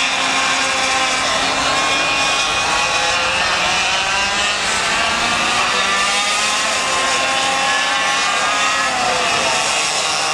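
Two-stroke 125cc Leopard kart engines racing. Their high whine overlaps, and the pitch climbs and drops as the karts accelerate and lift through the corners.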